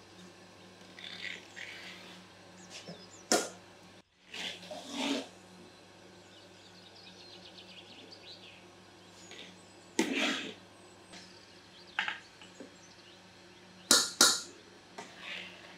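A metal ladle and a metal bowl clinking against the rim of a large metal pot of simmering pomegranate juice as the foam is skimmed off: a few sharp single clinks, then two in quick succession near the end, over a low steady hum.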